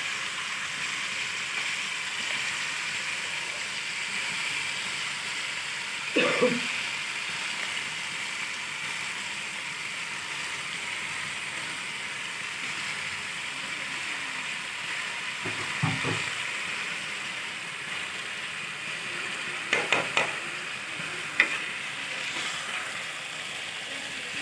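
Potato slices frying in oil in a metal pot, a steady sizzle, as chopped fenugreek leaves are stirred in. A metal spoon knocks and scrapes against the pot a few times.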